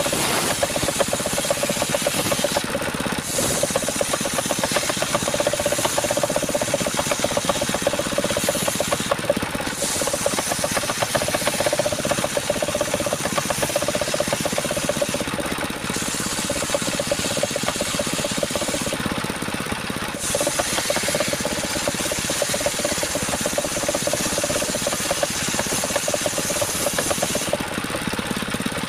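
Power saw running continuously under load, cutting through a coconut trunk, its sound briefly changing in tone every few seconds.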